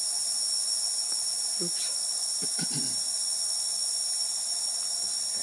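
Chorus of forest insects, a steady high-pitched drone.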